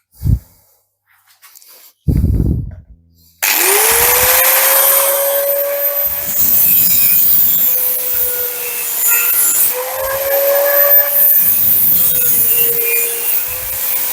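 Two short knocks, then an angle grinder starts about three and a half seconds in, quickly spinning up to speed with a high whine. It then cuts through metal, loud and steady, its pitch sagging and recovering as the disc bites.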